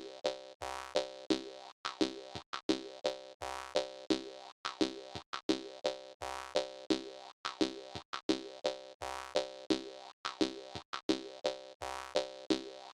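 Jaw harp playing a rhythmic tune: twanging plucks over one steady drone note, about three a second.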